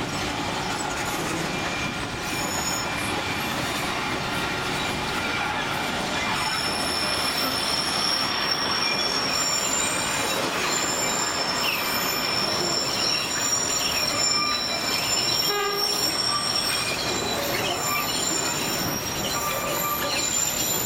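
Narrow-gauge sugar-cane railway train running, heard from an open-air passenger car: a steady rumble and rattle of wheels on the track. From about six seconds in, thin high wheel squeals join it.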